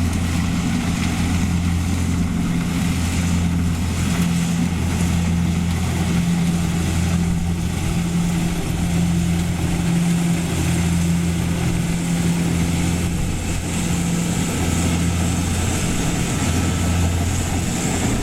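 Rice combine harvester engine running steadily at constant speed: a low, even hum that holds its pitch.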